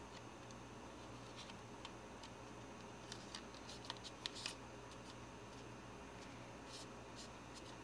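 Faint, scattered clicks and taps of plastic model-kit parts being handled and pressed together, bunched around four seconds in, over a steady low hum.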